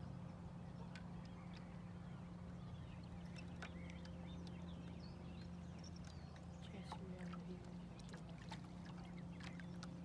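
A boat motor humming steadily at low speed, with scattered bird chirps and a few light clicks over it.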